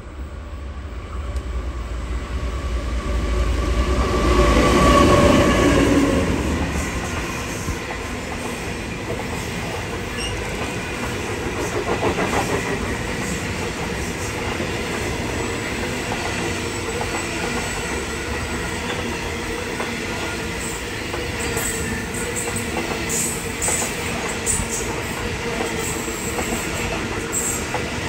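The Indian Pacific passenger train passing close by. Its diesel locomotive is loudest about five seconds in, with a low rumble and a steady engine tone. Then the stainless-steel carriages roll past with a steady clicking of wheels over rail joints, and short high wheel squeals near the end as the train takes the curve.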